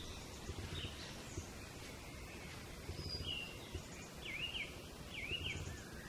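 Wild birds singing, with scattered short whistled phrases and two quick up-and-down warbled phrases late on, over a low steady outdoor rumble.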